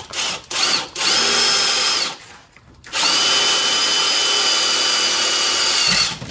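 Cordless impact driver with a drill bit boring a hole into the van's steel frame rail: a couple of short bursts, a run of about a second, a brief stop, then a steady run of about three seconds with a held whine.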